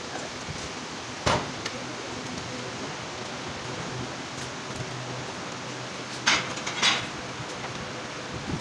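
Metal clanks from an electric motor stator and small metal parts being handled on a wooden workbench: one sharp knock about a second in, then two clattering knocks close together past the middle, over a steady hiss and faint hum.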